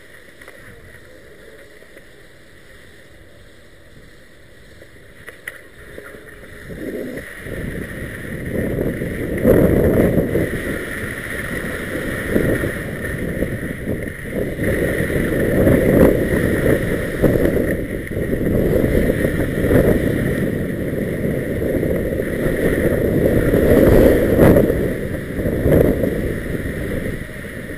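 Wind buffeting the microphone and skis scraping over snow as the person filming skis downhill. It is faint at first, builds about seven seconds in, and then swells and dips every few seconds.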